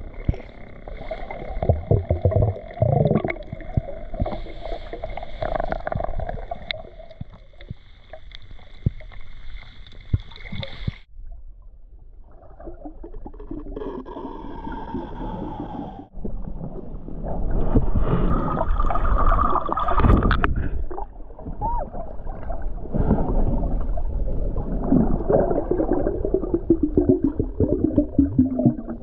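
Muffled underwater sound picked up by a submerged action camera: water movement and crackling, with a steady high whine for about the first eleven seconds that cuts off suddenly. After that come muffled, wavering pitched sounds, one falling slowly in pitch near the end.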